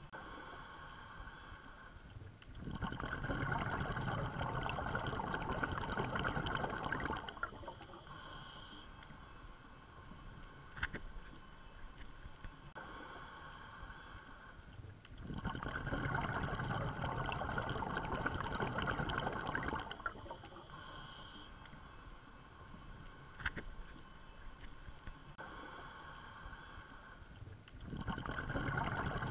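Underwater bubbling and rushing water that swells for about four seconds roughly every thirteen seconds, with quieter gurgling and a short higher hiss between the swells.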